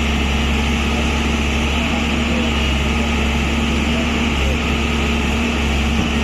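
Tata Hitachi excavator's diesel engine running steadily with a constant low hum.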